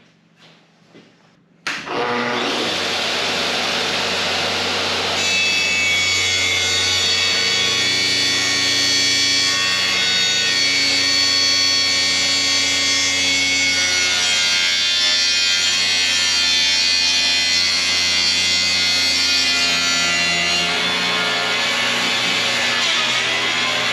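Makita plunge-cut track saw cutting a sheet of plywood along its guide rail in one long, steady cut, starting suddenly about two seconds in. Background music plays along with it.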